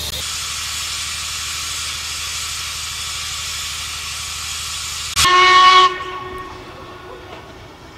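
Ivatt Class 2MT 2-6-0 steam locomotive No. 46447 hissing steadily as it blows off steam, then giving one short, loud whistle blast about five seconds in.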